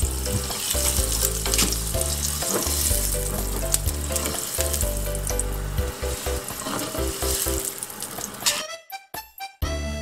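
Sliced ginger sizzling in hot oil in a frying pan, stirred with wooden chopsticks, over background music. The sizzle cuts off near the end.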